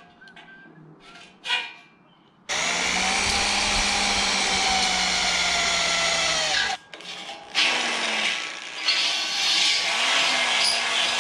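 Corded electric drill boring into steel square tubing. After a couple of seconds of light handling clicks, the drill runs steadily for about four seconds and stops, then starts again about a second later with a rougher, scraping sound as the bit cuts the metal.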